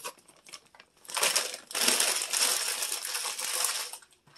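Plastic bag of frozen pepper strips and onions crinkling and rustling as it is handled, in a short stretch about a second in and a longer one of about two seconds right after.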